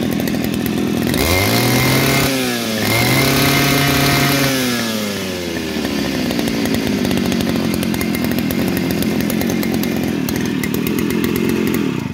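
Brush cutter's Kawasaki TD33 two-stroke engine, fitted with a homemade box muffler, revved up twice to high speed with a short dip between, then settling back to a steady idle.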